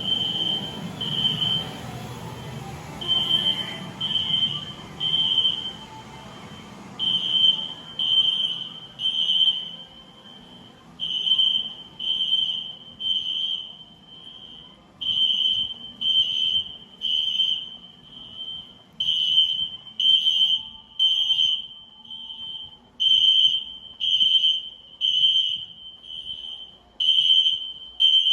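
System Sensor SpectrAlert Classic fire alarm horns sounding the evacuation signal: a loud, high beep about once a second in groups of three, with a longer pause between groups (temporal-3 pattern).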